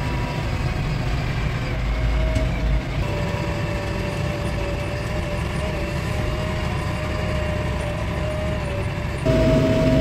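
JCB 3DX backhoe loader's diesel engine running steadily, heard from inside the cab as a low rumble with a steady whine over it. Near the end it gets louder and the whine rises slightly as the engine speeds up to drive the machine onto the road.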